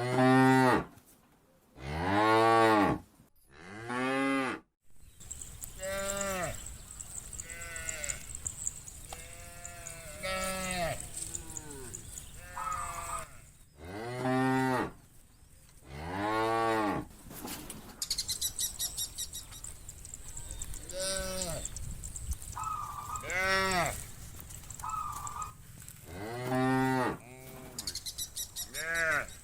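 A herd of cattle mooing over and over, a dozen or more separate calls of about a second each, some loud and deep, others higher and fainter.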